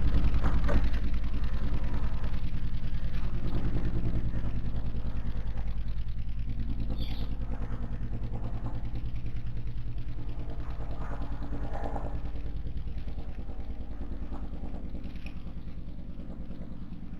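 An engine running steadily with an even low hum, slowly fading away.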